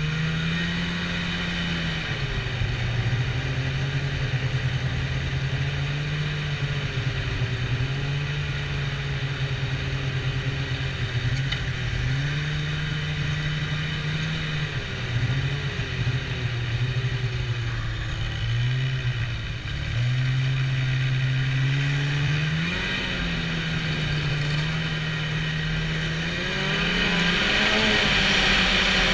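Snowmobile engine running while riding, its pitch rising and falling with the throttle every few seconds, then climbing and getting louder near the end.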